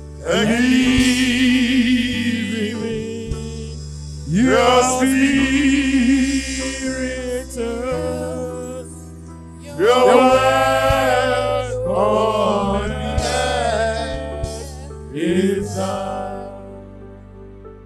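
Gospel worship music: a voice singing long, drawn-out phrases with wavering pitch over sustained low chords, a new phrase starting about every five seconds.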